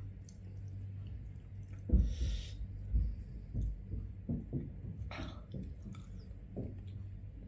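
A person chewing a mouthful of fish curry and rice: soft, low, wet chewing sounds, thickest about two to four seconds in, with a short breathy sound about two seconds in. A low steady hum runs underneath.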